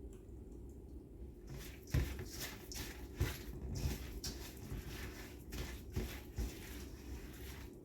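Spoon stirring snow ice cream mixture in a bowl. Irregular scrapes and knocks start about a second and a half in.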